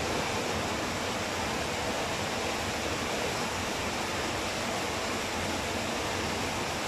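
Steady, even rushing hiss with no distinct knocks or clicks.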